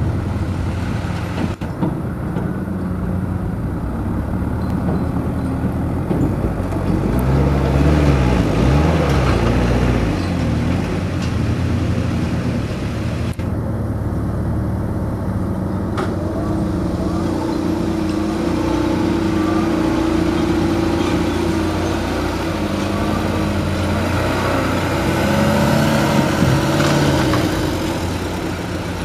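Heavy diesel engines of a Komatsu hydraulic excavator and dump trucks running, the engine pitch rising and falling several times as the machines work and a truck drives off.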